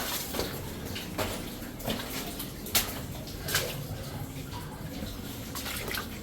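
Footsteps splashing through shallow water in a flooded mine tunnel, a short slosh every second or so over a steady background of running water.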